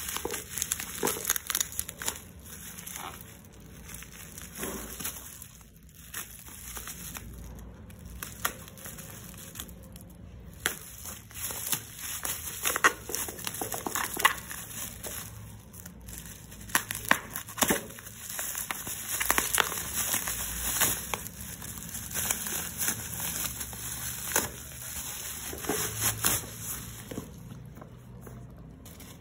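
Packaging being unwrapped by hand: irregular crinkling, crackling and tearing of plastic wrapping as a parcel is opened, with sharp clicks and rustles throughout.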